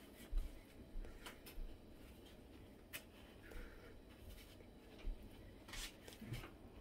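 Faint scattered rustles and light clicks of dry rolled oats and seeds shifting and crunching as a wet ball of dough is pressed and rolled in them, with a few soft thumps of the hand against the dish.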